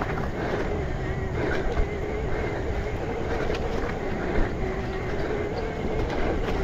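Electric mountain bike ridden down a trail: tyre rumble and wind on the microphone, with a steady whine from the electric drive motor that wavers in pitch. A few sharp knocks come from the bike going over bumps, the loudest about four and a half seconds in.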